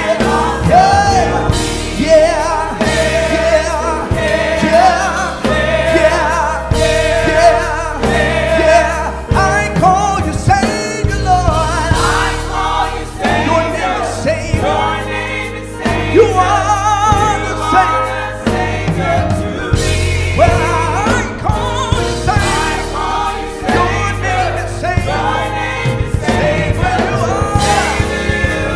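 Gospel choir singing a worship song with band accompaniment, a steady bass and a beat.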